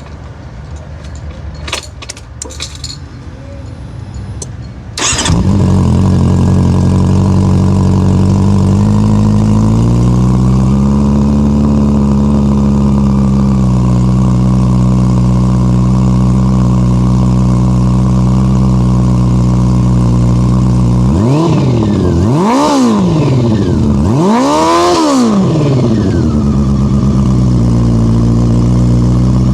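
Honda CB400 Super Four's inline-four engine starting after a few faint clicks, about five seconds in, then idling steadily through its exhaust. Near the end it is revved twice in quick blips, pitch rising and falling each time, and settles back to idle.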